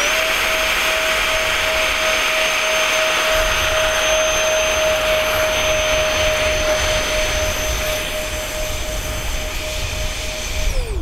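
Two 50 mm Dr Mad Thrust electric ducted fans on a foam RC Boeing 747 model running at full throttle: a steady high whine with rushing air, held for about ten seconds, then spooling down near the end. This is a take-off run across grass that is throttled back when the model fails to lift off.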